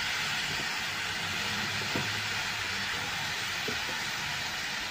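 Raw chicken pieces sizzling with curry powder in hot oil in an electric wok: a steady hiss, with a faint tick about two seconds in.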